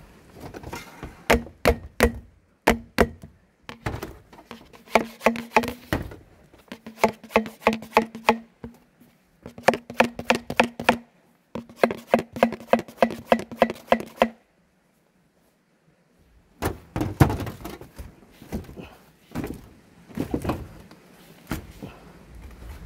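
Hammer striking metal in rapid bursts of taps, with a ringing note under the strikes. The sound drops out for about two seconds near the middle, then the knocking resumes.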